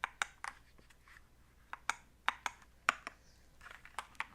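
Keys of a Cool Killer CK75 mechanical keyboard being pressed one at a time at an uneven pace, a dozen or so sharp clicks, as FN key combinations switch its RGB lighting modes.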